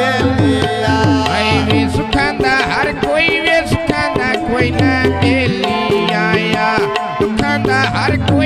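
Male voice singing a Punjabi mahiya folk song with a hand drum keeping a quick beat and held instrumental tones underneath.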